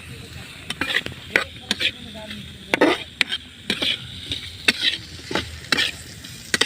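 A spoon or spatula stirring and scraping in a pan of shrimp frying, in short irregular strokes over a steady sizzle.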